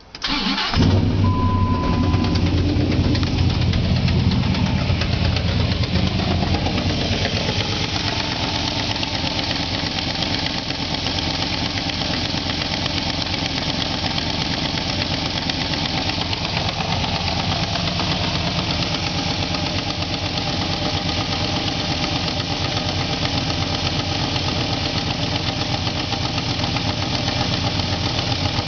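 A pickup truck's engine starting up and then running. The engine speed settles down over the first several seconds to a steady idle, and a brief high tone sounds just after it catches. The owner calls this a bad engine noise.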